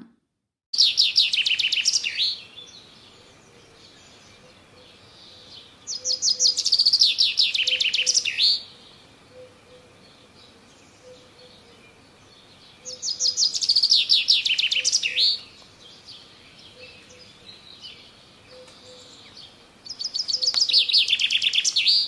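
Male common chaffinch singing: four song phrases about six to seven seconds apart, each a fast run of notes falling in pitch.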